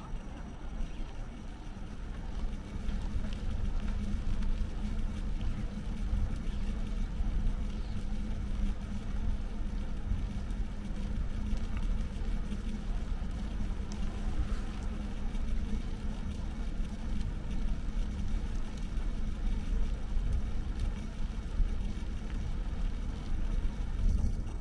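Steady low rumble of riding a bicycle along city streets, mostly wind on the microphone and road noise, growing louder about two seconds in.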